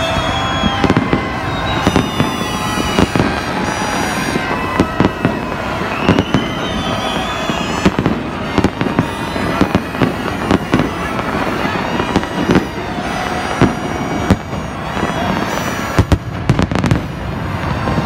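Aerial fireworks going off overhead: a dense run of bangs and crackling, with several whistling rockets whose whistles bend in pitch.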